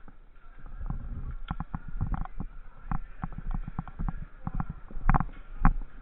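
Irregular knocks, clicks and thumps, a few stronger ones about five seconds in.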